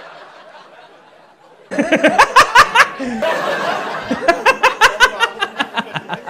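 Audience laughter fades away over the first second and a half. Then loud laughter cuts in suddenly, with quick repeated rising squeals, loudest a second or so after it starts.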